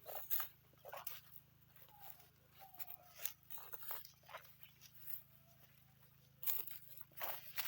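Irregular crunching and rustling of fresh grass in short bursts, with a cluster of louder ones near the end.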